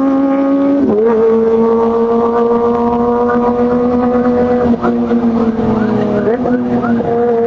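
Kawasaki Ninja ZX-25R's 249 cc inline-four engine running at high revs with a high, steady, buzzing note. The pitch dips briefly and climbs back about a second in and twice near the end.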